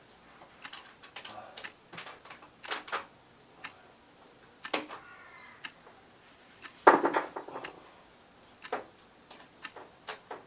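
Scattered clicks and knocks of metal and plastic window hardware as a uPVC window sash is fitted back onto its hinge. The loudest cluster of knocks comes about seven seconds in.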